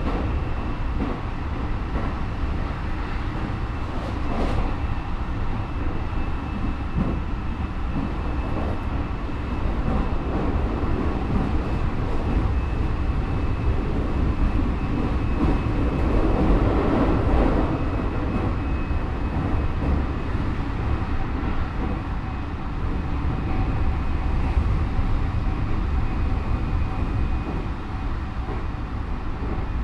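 Running noise heard inside a Keikyu 1000 series electric train car with Mitsubishi IGBT inverter drive: a steady rumble of wheels on rail under a thin, steady high whine, with the noise swelling about sixteen seconds in and easing off again about two seconds later. This car's traction motors are unusually loud.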